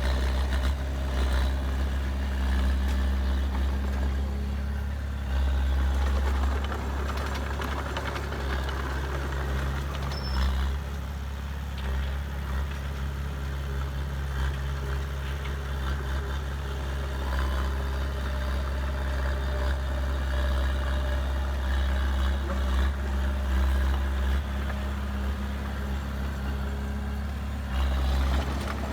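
Heavy diesel engine of earthmoving machinery running steadily with a deep, even rumble.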